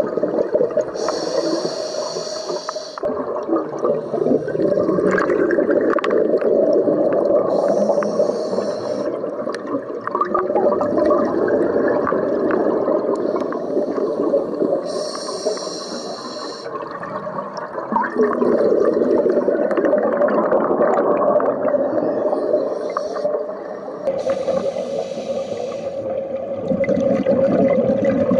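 Scuba divers' exhaled bubbles from their regulators, heard underwater through a camera housing: steady bubbling and gurgling, with four brighter, hissier rushes of bubbles, each about two seconds long and several seconds apart.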